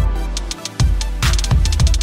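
Electronic background music with a steady beat of drum hits over a deep bass line that drops out briefly about half a second in.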